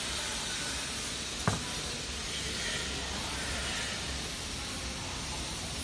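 Steady hissing noise with one sharp click about a second and a half in.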